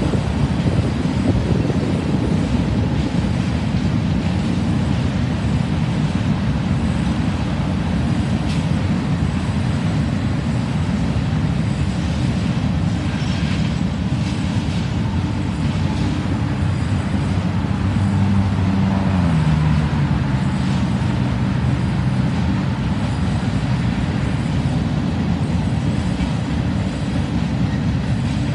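Hopper cars of an empty coke train rolling past in a steady rumble, with road traffic going by; a passing vehicle's engine note falls in pitch about two-thirds of the way through.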